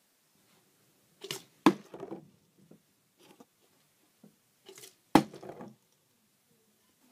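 Two sharp knocks of objects being set down hard on a wooden surface, about three and a half seconds apart, each with a softer handling sound just before it and light clicks and rustles between them.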